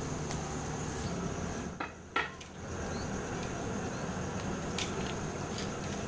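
Tropical forest ambience with a steady high-pitched insect drone, broken by a few sharp clicks and a brief drop in level about two seconds in.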